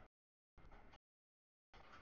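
Faint noise of a double-stack container train passing, cutting in and out abruptly: audio dropouts leave three short snatches of sound with dead silence between them.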